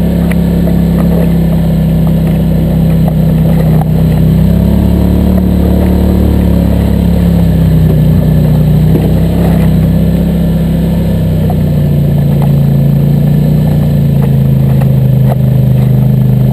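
ATV (quad) engine running steadily while riding, its pitch rising and falling gently with the throttle.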